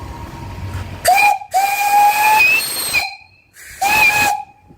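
A 2-inch solid brass steam whistle on a fire-tube steam boiler blown three times: a short toot, a longer blast of about a second and a half, then another short toot. Each is a shrill steady note over hissing steam that bends up slightly as it opens.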